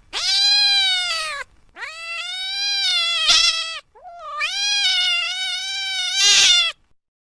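A cat giving three long, drawn-out meows one after another, the last one turning harsher just before it ends.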